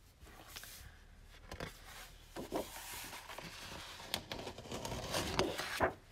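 Sheets of patterned scrapbook paper rustling and sliding over one another as they are handled and flipped on a cutting mat, with a couple of sharper paper flaps in the second half.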